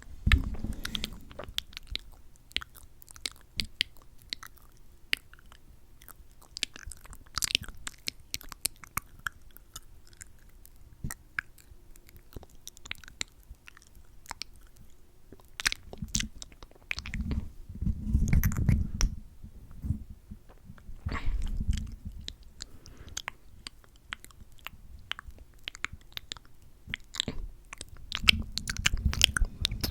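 Close-miked wet mouth sounds from glossed lips: many small sticky lip smacks and clicks. Low muffled rumbles come in near the start, around the middle and again near the end.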